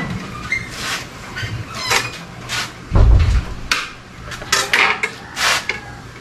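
Hand tools and an aluminium sliding-window frame clinking and scraping in short, irregular strokes while glass is fitted into the panel. A dull knock comes about three seconds in.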